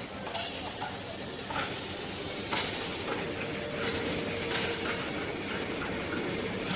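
Elevator guide rail planer running on a rail production line: a steady mechanical hiss with a few sharp clicks, and a steady hum that comes in about three seconds in.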